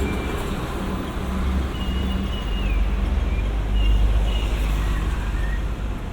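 Road traffic: vehicle engines giving a steady low rumble that swells about four seconds in, with a few faint, short, high chirps over it.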